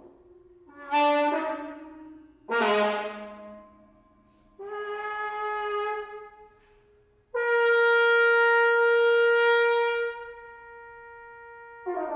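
Bass trumpet playing separate notes: two sharply attacked notes that fade away, a shorter held note, then a long, steady held note of about two and a half seconds, with a quieter low sustained tone beneath the first notes.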